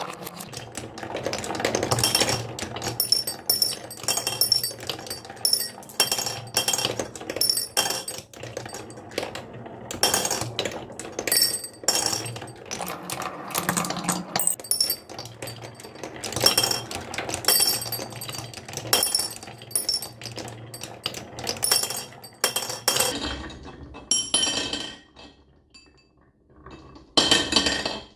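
Marbles clattering and clinking down a wooden HABA marble run: a dense stream of quick clicks and ringing high clinks. It thins out after about 23 seconds, falls nearly quiet, then comes back in two short bursts near the end.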